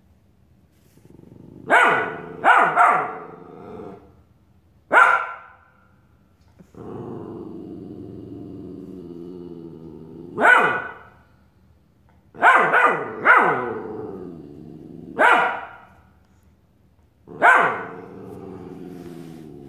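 Australian Shepherd puppy barking at its own reflection in a mirror: about ten sharp barks, singly and in quick pairs, with long low growls between them.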